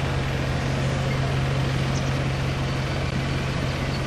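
A steady low mechanical drone, like an engine or machinery running, under general outdoor background noise.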